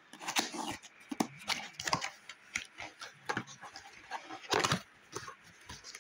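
Cardboard retail box being opened by hand: irregular rustles, scrapes and clicks of flaps and packaging, with the loudest tear or scrape a little over four seconds in.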